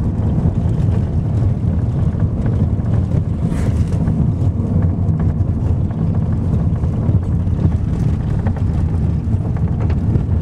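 Taxi driving, heard from inside the cabin: a steady low rumble of engine and tyre noise, with scattered small knocks and rattles.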